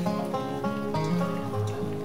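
Background music: a tune of quick plucked-string notes.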